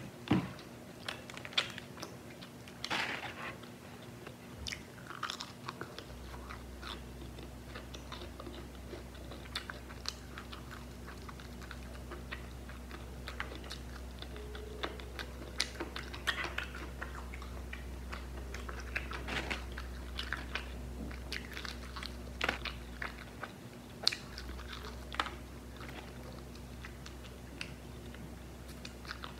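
Close-miked chewing and biting of crispy fried chicken: the coated crust crunching and crackling in many short, irregular bites, with wet mouth sounds between them.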